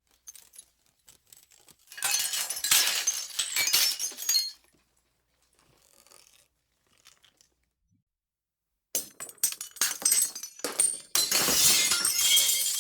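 Glass breaking, twice: after a few small clinks, a full shatter about two seconds in with a dense spill of tinkling pieces lasting over two seconds. After a lull, a run of sharp cracks and clinks from about nine seconds leads into a second full shatter near the end.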